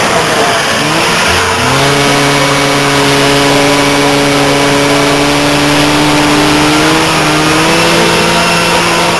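Ski-Doo snowmobile engine under way. Its pitch rises about a second and a half in, then holds steady at speed, over a loud rushing noise.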